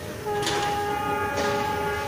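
Indian Railways train horn sounding a steady, held tone that starts a quarter of a second in, over the running noise of the train in motion. There are two sharp clicks in the middle.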